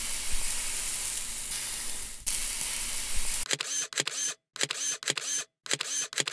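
A steady hiss, then from about three and a half seconds in, a camera shutter sound effect: sharp shutter clicks with a winding sound, repeated in several short runs with brief silent gaps between them.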